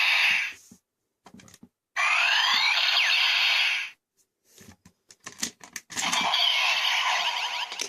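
Electronic sound effects played through a toy's small speaker, here the DX Break Gunner transformation toy, in two bursts with sweeping pitches. Between them come short clusters of plastic clicks as the toy is worked and a Shift Car is loaded.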